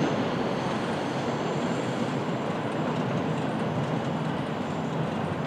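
Train running slowly on curved track: a steady rumble of wheels on rail, with a faint high wheel squeal about two seconds in.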